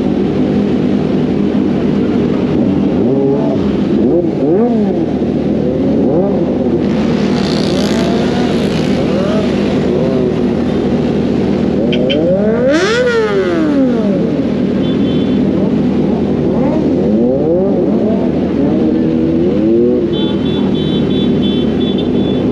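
Several sport motorcycles idling together, with throttle blips that rev up and drop back again several times; the biggest, about halfway through, climbs high before falling. Short runs of quick high beeps sound a few times.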